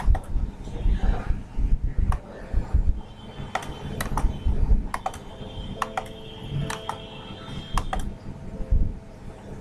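Computer keyboard keystrokes and mouse clicks, irregular and spaced out, with some dull low thuds among them.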